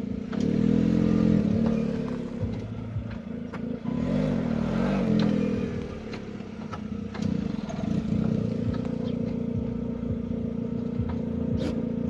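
Lada Vesta's engine running as the car is driven, its note swelling and easing, with a few light clicks and knocks. This is a test run after greasing the brake pads, and no high brake squeal stands out.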